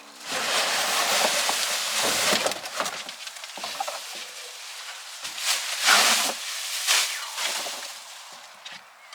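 Packaging being handled and pulled off a new bike frame: loud rustling and crinkling, in a long burst at the start and another about six seconds in, with smaller crackles between.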